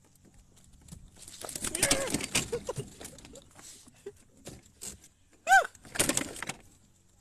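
Yellowtail kingfish thrashing on a fishing kayak: a rapid flurry of slaps and thumps, then scattered knocks and a second burst near the end. A short voiced sound, rising then falling in pitch, comes about five and a half seconds in.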